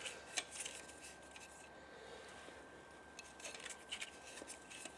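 Faint rubbing and scraping with a few light clicks, the sound of a spark plug being unscrewed by hand from the cylinder head with a length of rubber hose pushed over it. The clicks come mostly about three to four seconds in.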